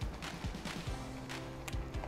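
Soft background music with steady held notes, over a few light clicks and scrapes of a spoon stirring risotto in a pot.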